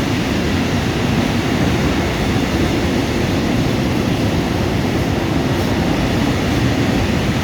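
Freight train of EAS open coal wagons hauled by a Škoda class 183 electric locomotive rolling past close by: a loud, steady rumble of wheels on the rails.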